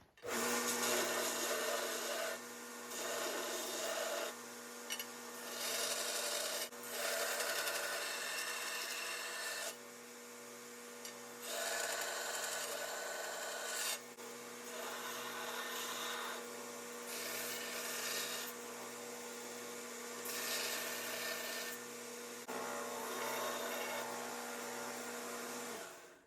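Electric grinder running with a steady motor hum while a forged spring-steel hot-cut hardy tool is pressed against it in passes, the grinding noise rising and falling every few seconds as the profile is cleaned up.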